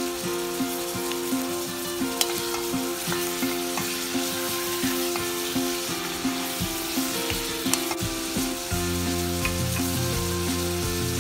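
Diced chicken and onion sizzling as they fry in a pot, stirred with a wooden spatula. Background music with a steady beat plays over it, and a deeper bass part comes in near the end.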